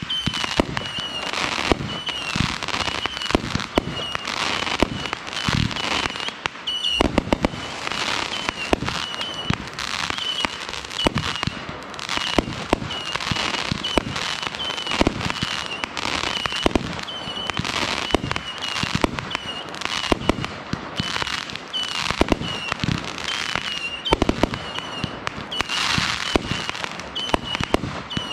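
Consumer aerial fireworks firing in quick succession from one spot on the ground: launch thumps, sharp bursts and steady crackling, with a short warbling high tone repeating about once a second.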